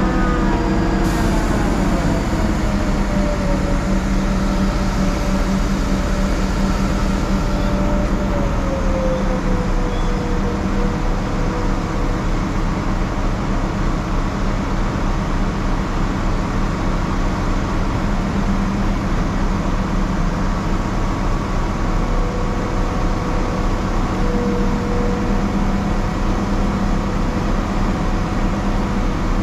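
Large mobile crane's diesel engine running steadily. Its revs ease down over the first several seconds, then rise and settle again briefly a little past the middle.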